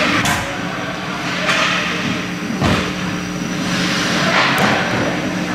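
Ice hockey play: skate blades scraping and carving the ice in swelling hisses, with several sharp clacks of sticks and puck, over a steady low hum.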